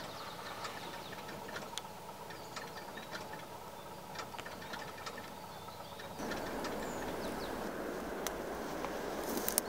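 Quiet trackside ambience: a faint steady hum with scattered light ticks. About six seconds in, it switches abruptly to a louder, even rushing noise.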